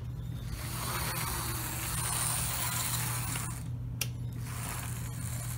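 Tyco HO scale ALCO C430 diesel model locomotive with two Power Torque motors running along the track: a steady electric-motor hum with a mechanical gear whir.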